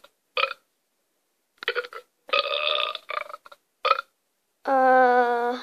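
A person burping several times in a row, some burps short and some longer. The last burp is long and drawn out, with a steady pitch that sinks slightly.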